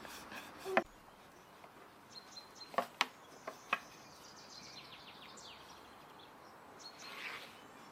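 Long thin wooden rolling pin knocking a few times against a round wooden board as dough is rolled out, with birds chirping faintly in the background.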